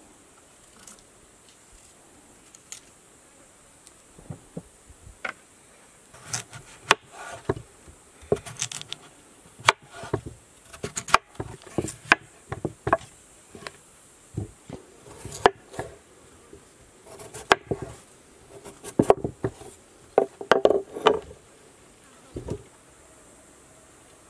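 Large kitchen knife cutting peeled potatoes on a wooden board: irregular sharp knocks as the blade goes through the potato and hits the wood, starting a few seconds in.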